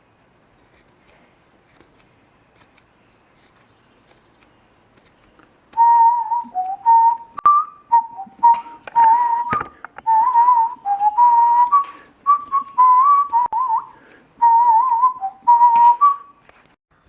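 A person whistling a wandering, made-up tune in short notes, starting about six seconds in, with a few faint clicks among the notes.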